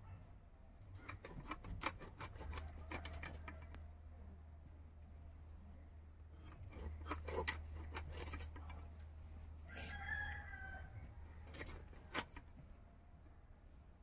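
Large knife scraping and cutting through snakehead fish by hand, in clusters of quick scraping strokes. A chicken clucks briefly about ten seconds in.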